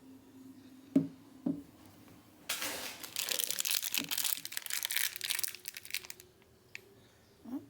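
Packaging being opened by hand: two quick knocks, then about three and a half seconds of crinkling and tearing.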